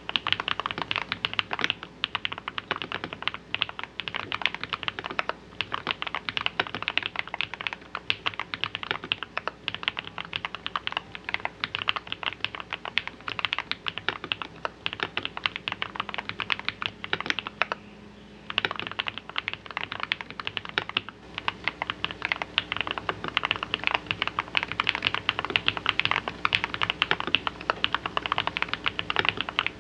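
Fast, continuous typing on an RK Royal RG-987 mechanical keyboard fitted with lubed 62 g tactile switches (Holy Panda clones), a steel plate and foam and silicone dampening, giving a deep, thocky keystroke sound. The typing stops briefly a little past halfway, then resumes.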